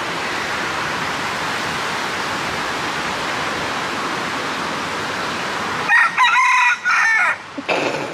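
Steady rush of waterfall water, then about six seconds in a rooster crows over roughly a second and a half.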